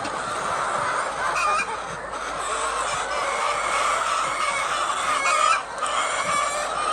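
A flock of chickens clucking and calling all at once, many overlapping voices in a steady continuous din.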